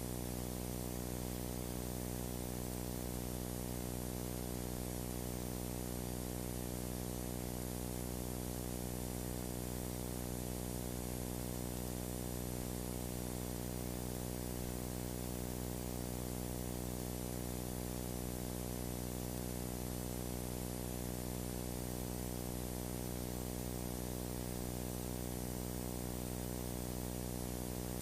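Steady electrical hum with many overtones under a constant hiss, unchanging throughout.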